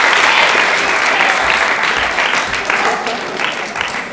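Audience and performers applauding. The clapping is dense at first, then thins out and fades toward the end.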